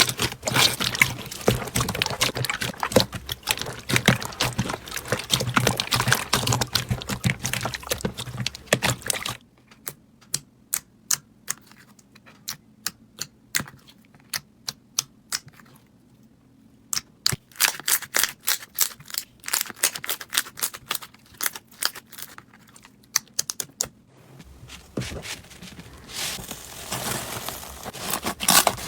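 Slime being worked by hand, making a dense crackle of small clicks and pops. About nine seconds in it thins to separate pops over near quiet, and it turns dense again in the last few seconds.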